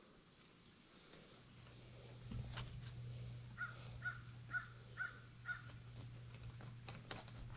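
A crow cawing five times in a row, about two caws a second, faint over a low steady hum.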